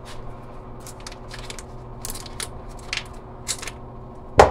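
Paper wrapper crinkling in quick little rustles as it is peeled off a stick of butter, then a single loud thud near the end as the butter drops into an empty metal saucepan.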